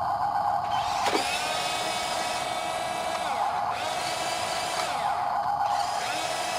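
Electric motor and gearbox of a radio-controlled truck whining steadily, its pitch sweeping up and down as the throttle changes, with a sharp drop about a second in.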